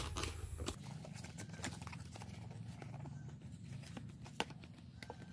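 Scattered light clicks and taps from a plastic face-wash bottle and its packaging being handled, over a faint steady room hum.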